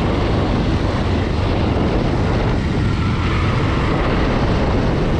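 Motorcycle on the move: a steady rush of wind on the action camera's microphone with the engine's running rumble underneath.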